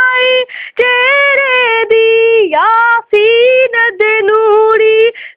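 A young girl singing a Punjabi naat solo, with no instruments, in long held notes that slide in pitch, broken by short pauses for breath.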